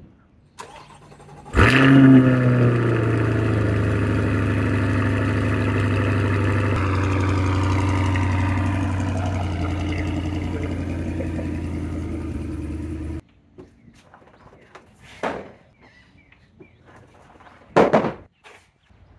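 Chevrolet C8 Corvette Stingray's 6.2-litre V8 starting up with a brief rev flare, then running at a steady fast idle that slowly settles lower, cut off suddenly partway through. Near the end come two wooden knocks as wooden car ramps are set down on the garage floor.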